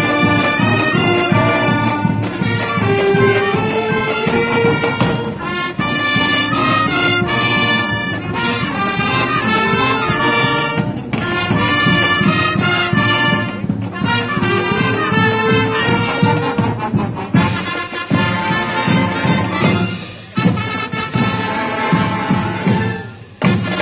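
Marching band playing a loud brass tune, sousaphones, trumpets and trombones over a steady drum beat.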